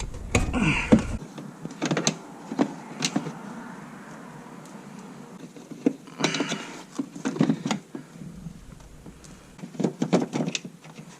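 Scattered plastic clicks, knocks and rustling as a car fog light's wiring connectors are unplugged and the lamp is handled, with a quick run of clicks near the end.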